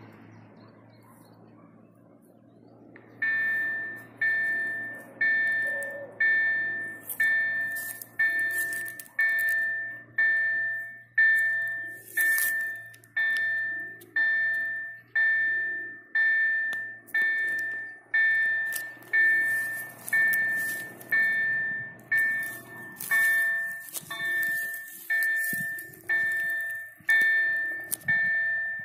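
Automatic level-crossing warning bell starting about three seconds in and ringing steadily about once a second, each stroke fading out. The crossing signals are active, warning that a train is approaching.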